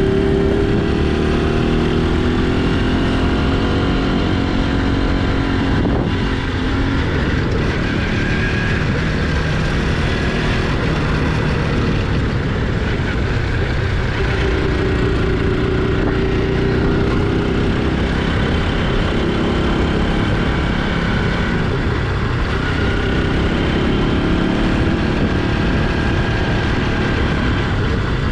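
Motorcycle engine running under way, its pitch rising and falling with the throttle, over a steady rushing noise.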